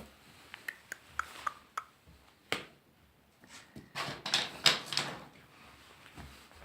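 Rubber balloon being bumped and rubbed: light knocks and clicks with short squeaks, a sharp tap a little after two seconds, then the loudest part, a quick run of scraping and rustling about four seconds in.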